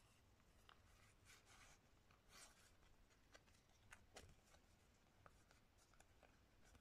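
Faint rustle of playing cards sliding and rubbing against each other as a hand of them is fanned out and sorted, with a few soft clicks as card edges tap together.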